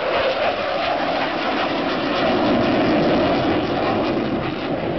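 Jet noise from an F-15E Strike Eagle's twin engines, a steady loud roar whose pitch slowly falls as the jet turns away down the field.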